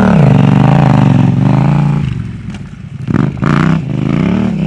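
Adventure motorcycle engine revving up and down as it is ridden through tight turns, easing off about two seconds in and picking up again about a second later.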